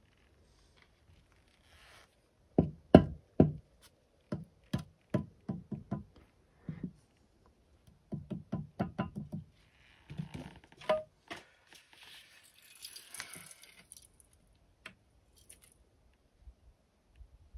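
Mallet knocking a concrete block down into its mortar bed to level it: runs of dull knocks, two or three a second, from about two and a half seconds in until about eleven seconds, followed by a softer scraping.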